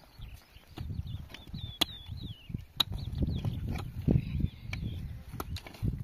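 Birds chirping in high, wavering calls, with scattered sharp clicks and low rustling and thumping that gets louder about halfway through.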